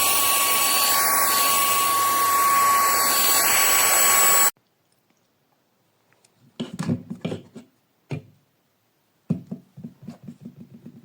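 VEIPAO cordless handheld vacuum/air blower's small motor and fan running at full speed: a loud, steady rush of air with a thin high whine, cutting off suddenly about four and a half seconds in. After a pause come two bursts of quick plastic clicks and rattles as the unit is handled.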